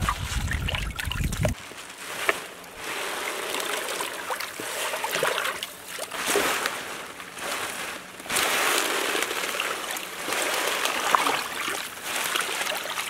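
Water sloshing and splashing as hands swish handfuls of freshly cut kale and collard leaves around in a plastic tub of ice-cold water. It comes in uneven surges, swelling and easing again and again.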